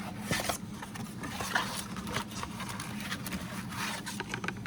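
Rustling, scraping and small clicks of card-box and pack packaging being handled, over a low steady hum.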